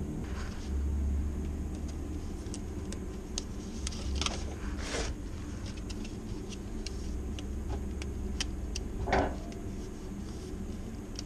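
Handling noise as paper plates are taken from a stack in a plastic storage cabinet: scattered light clicks and rustles, with a louder knock about nine seconds in, over a low steady rumble.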